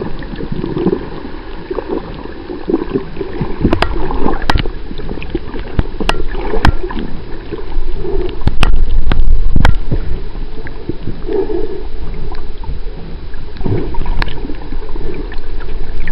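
Water heard through a submerged camera: muffled gurgling and bubbling, with several sharp clicks scattered through it.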